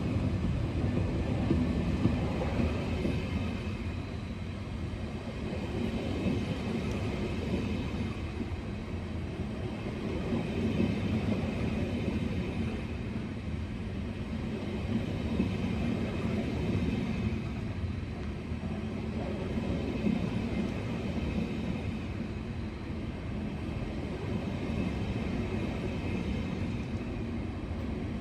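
A train running through a railway station: a steady low rumble of wheels and running gear on the track.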